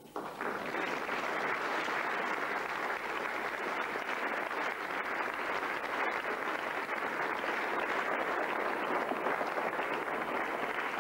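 Audience applauding: dense, steady clapping that begins right after the brass band's final chord.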